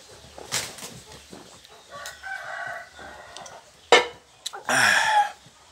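A rooster crows in the background while a man drinks from a metal mug. A sharp knock comes just before four seconds in, and a loud breathy burst follows about a second later.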